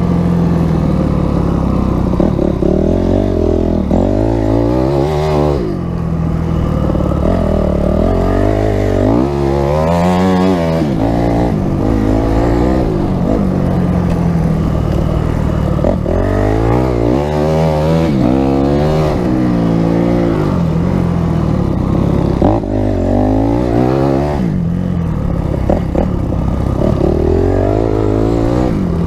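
Christini two-wheel-drive Honda CRF250X's four-stroke single-cylinder engine heard from on board while riding through snow, its revs rising and falling over and over, with steadier stretches between.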